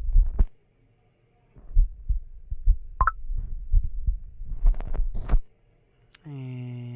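Handling noise: irregular low thumps and light rustling, with a short high squeak about three seconds in. A man's drawn-out voiced hum begins near the end.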